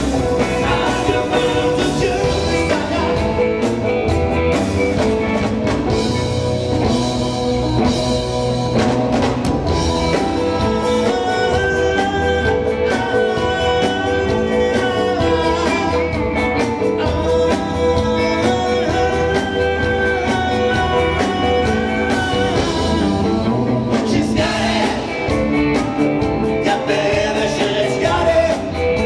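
Live rock band playing: a man singing over electric guitar and a drum kit.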